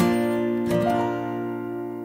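Background music on guitar: two strummed chords, the second about two-thirds of a second after the first, then the notes ring on and slowly fade.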